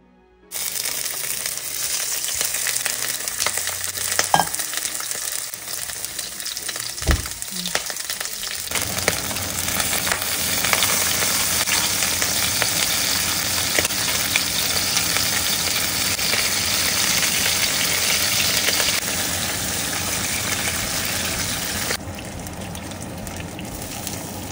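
Turkey neck and giblets sizzling as they fry in oil in a nonstick skillet, with a couple of knocks in the first third. The sizzle grows louder about a third of the way in and turns quieter near the end.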